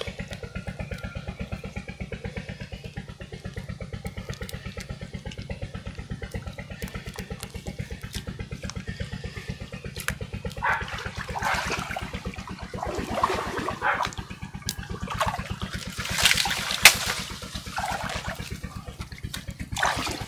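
A small engine running steadily with a regular low chugging. From about halfway, bursts of water splashing and sloshing come over it, with a sharp click near the end.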